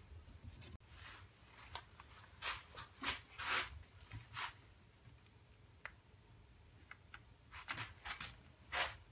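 Quiet handling sounds: scattered short clicks and rustles as hands work a hot glue gun and hold a turned wooden ball against a lathe's jam chuck, over a faint low hum. They come in two clusters, a few seconds in and again near the end.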